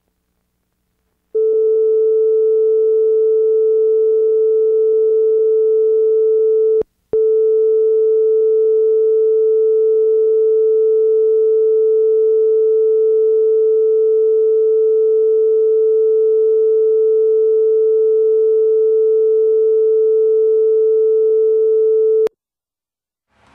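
A 440 Hz test tone played back from tape on an Aiwa AD-F770 cassette deck, taken straight from its line output. It holds one steady pitch with no audible wow or flutter, the sign that the new drive belts run true. It starts about a second in, breaks off briefly with a click about seven seconds in, and cuts off with a click near the end.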